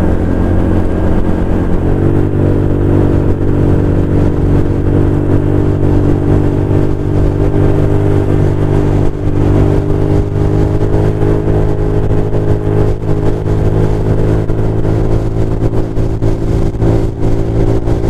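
Chinese GY6 150cc scooter engine pulling under way, its note climbing as the throttle opens about two seconds in, then holding steady at cruising speed.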